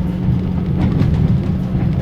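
Passenger carriage's axle-driven generator howling with a steady tone under a low rumble, while the wheels clack over rail joints as the train accelerates. Heard inside a closed sleeping compartment.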